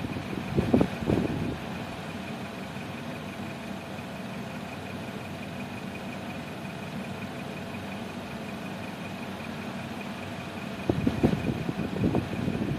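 Steady mechanical hum with a faint high-pitched whine, with irregular knocking and rustling about a second in and again near the end.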